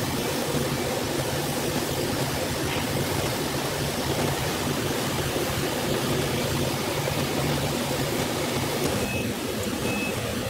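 Steady industrial machinery noise from a multi-deck board dryer: an even rushing hiss over a low hum.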